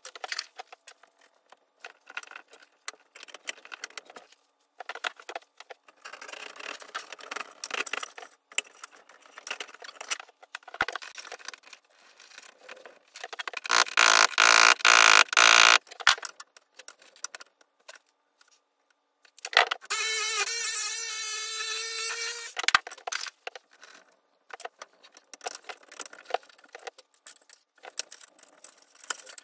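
Clicks, scrapes and rattles of metal conduit, fittings and wires being worked into an electrical panel. About 14 s in comes a loud two-second stretch of rapid rasping strokes, and about 20 s in a cordless drill's motor runs steadily for about three seconds.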